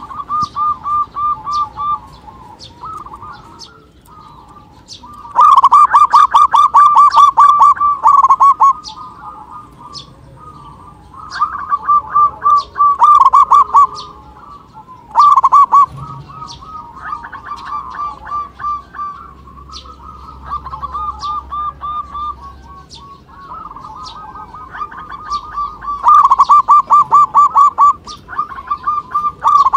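Zebra doves (perkutut) singing: bouts of rapid, pulsed cooing notes lasting a few seconds each, separated by short quieter gaps.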